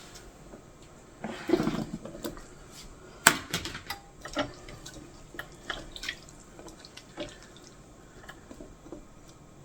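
Water at a sink splashing briefly about a second in, among scattered light clicks and knocks.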